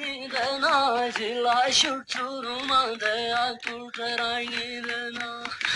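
Music: a song with a voice singing long, wavering held notes.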